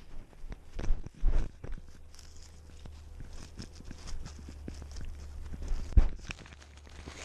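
Scuffing, rustling and crunching of a cat moving through dry grass with a GoPro camera on it, its fur brushing the camera. There are a few louder bumps about a second in and again near six seconds, over a steady low rumble.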